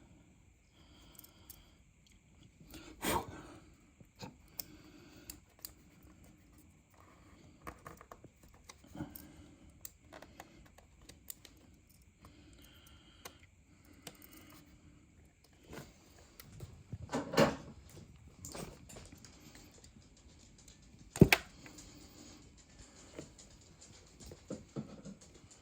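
Scattered clicks, taps and clatter of small plastic parts, screws and wire connectors being handled while the LG fridge's dispenser micro switch is taken out; a sharp click about 21 seconds in is the loudest, with heavier knocks around 3 and 17 seconds in.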